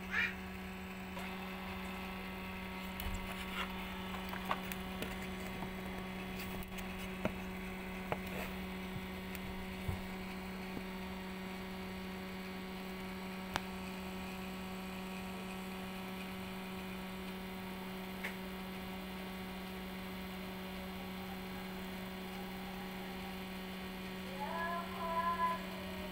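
Steady electrical hum, with a few faint clicks and taps over it.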